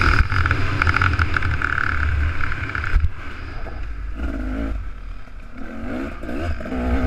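Two-stroke motocross bike engine ridden hard, heard from the rider's helmet camera. It is on the throttle at first, drops off about three seconds in, blips up a couple of times, then revs back up near the end.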